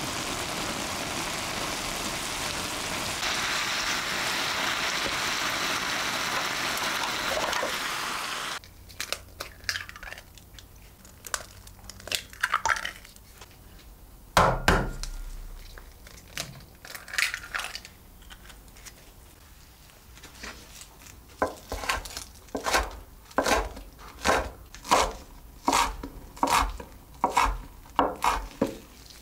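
Minced beef sizzling in a frying pan as a spatula stirs it, a steady hiss that cuts off suddenly. Eggs are then knocked and cracked into a glass bowl, with one knock much louder than the rest. A kitchen knife then chops scallions on a wooden cutting board in steady strokes, about two a second.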